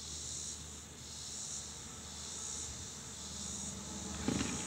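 A chorus of insects buzzing high and steady, swelling and fading about once a second, over a faint low hum. A short clatter sounds near the end.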